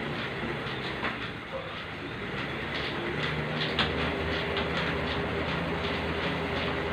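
Elliptical cross-trainer in use: a steady mechanical hum with a run of repeated clicks as the pedals and handlebars cycle. It gets louder about three seconds in.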